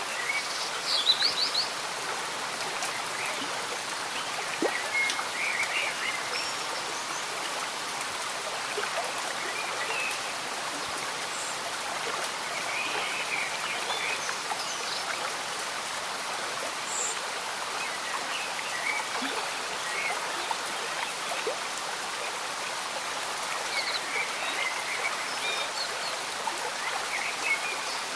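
Slow-moving stream bubbling steadily under gentle rain, with scattered short high chirps; a quick run of high chirps about a second in is the loudest moment.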